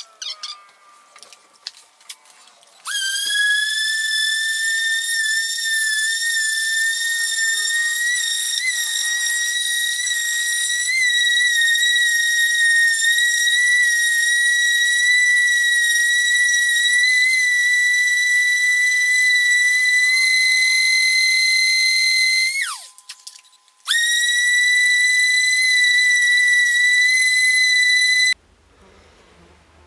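Small high-speed handheld rotary tool polishing an aluminum truck wheel rim, running with a steady high-pitched whine. It starts about three seconds in, winds down briefly about two-thirds of the way through, starts again a second later and cuts off suddenly near the end.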